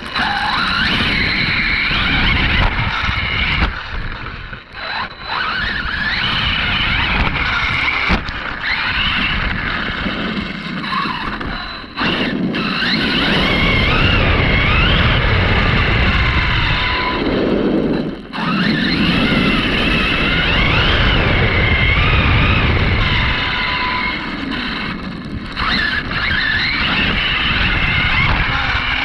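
Arrma Kraton 6S RC monster truck driving hard, heard from a camera mounted on the truck itself. The brushless motor's whine rises and falls with the throttle over continuous tyre and chassis rattle on dirt, grass and pavement.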